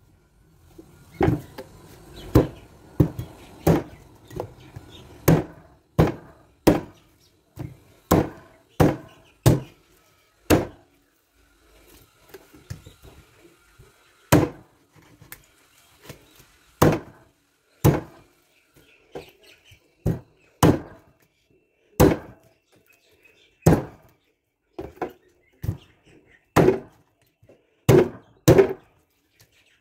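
Heavy cleaver chopping raw meat and bone on a thick wooden chopping block: a long series of sharp strikes, about one a second, with a pause of a few seconds about halfway through.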